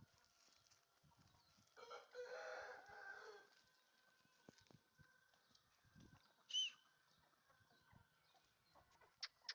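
Parrot-beak Aseel rooster crowing once, about two seconds in, for roughly a second and a half. A single high, short bird call follows some seconds later, and a run of quick high chirps starts near the end.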